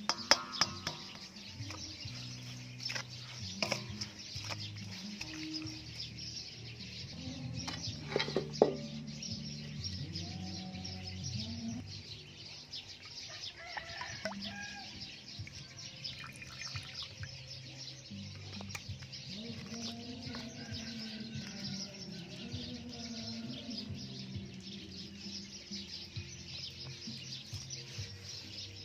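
Soft background music with low sustained notes that step from pitch to pitch, over outdoor ambience with birds chirping. A few sharp knocks of handling, the loudest about eight seconds in.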